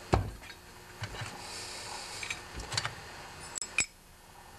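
A few light metal clicks and knocks of small-engine parts being handled: a Tecumseh engine's steel flywheel, just seated on its crankshaft, and its starter cup. The loudest knock comes right at the start, with a soft scraping in the middle.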